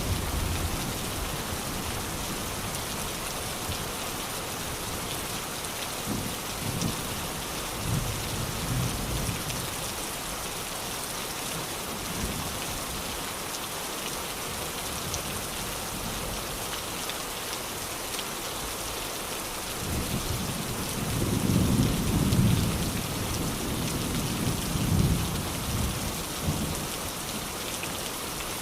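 Steady rain falling, with rolls of thunder: a few short, low rumbles about a quarter of the way in, and a longer, louder roll in the last third.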